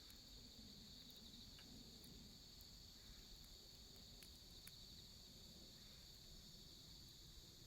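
Faint, steady chorus of crickets chirping in the night, a continuous high trill, with a few faint clicks.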